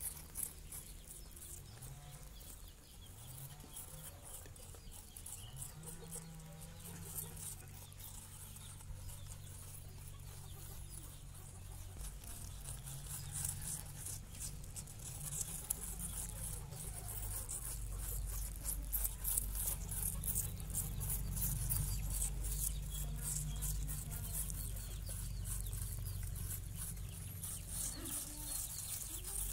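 Several baby rabbits nibbling and chewing an apple: rapid fine crunching clicks that get busier and louder through the second half, over a low hum.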